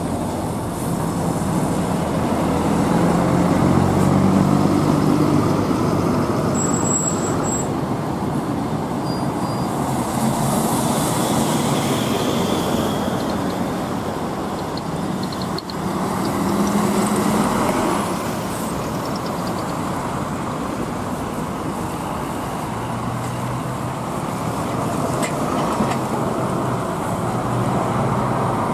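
Buses driving past one after another at close range: engines running and tyres on the road, swelling as each bus passes and fading as it moves away.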